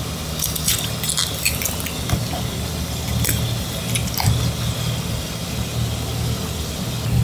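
Kitchen knife cutting through a tiger pufferfish's head on a cutting board: short clicks and scrapes, clustered in the first second and a half and again about three and four seconds in, over a steady low hum.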